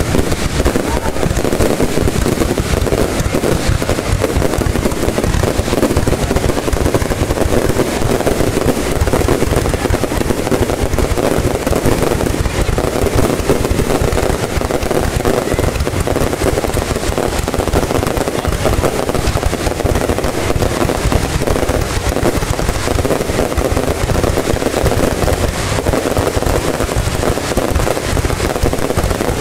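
Fireworks display: a dense, unbroken barrage of bangs and crackles, heaviest in the low booms.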